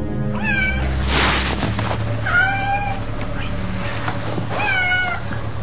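A domestic cat meowing three times, about two seconds apart, each call sliding in pitch. A short burst of rustling noise comes about a second in.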